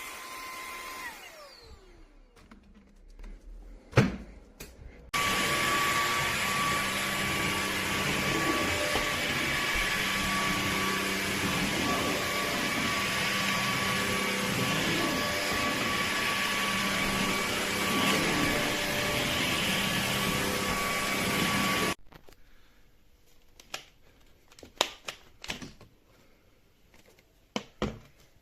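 LEVOIT cordless stick vacuum running steadily with a high whine for about seventeen seconds; it starts abruptly a few seconds in and cuts off suddenly. Before it, the motor's whine falls away as it spins down and there is a sharp click. Afterwards come scattered clicks and knocks of handling.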